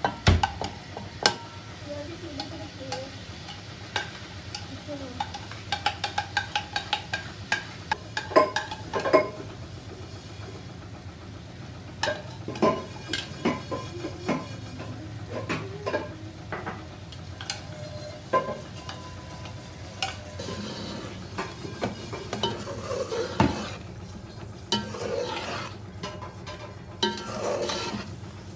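Metal spoon scraping and clinking against a metal cooking pot as leftover chicken qorma is scraped in and stirred, with repeated sharp clinks over a steady low sizzle of the curry frying in the pot.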